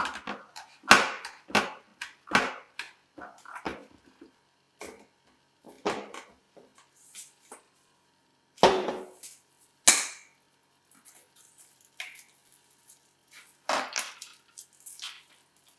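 Plastic reverse osmosis filter cartridges and housings being handled: irregular clicks, taps and knocks of hard plastic, with a few louder knocks in the middle and near the end.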